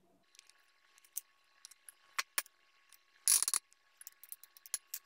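Spoon and plastic spatula scraping and clinking against a glass mixing bowl while thick pancake batter is folded: scattered soft clicks, with a louder cluster of knocks a little over three seconds in.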